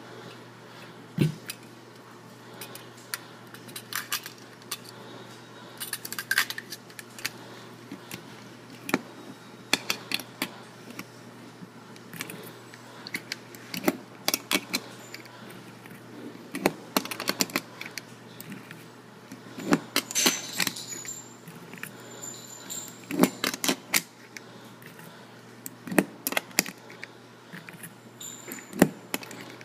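Irregular metallic clicks and clinks of 9mm cartridges being handled and pressed one by one into a Springfield XD pistol magazine, with a few sharper clacks among them.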